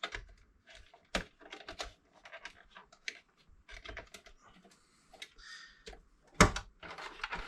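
Small plastic clicks and rattles of cable connectors being worked loose inside a desktop PC case, with a sharp knock about a second in and a louder one near the end, preceded by a brief scrape.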